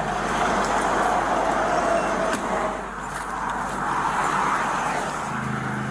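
Road traffic noise beside a two-lane highway, picked up on a police body camera: a steady rush of tyre and engine sound, with a faint whine that fades out a little under three seconds in.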